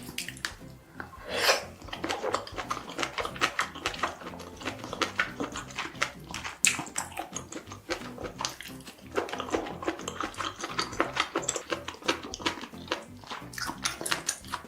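Close-miked eating sounds: a person chewing with many quick wet mouth clicks, with one louder burst about a second and a half in.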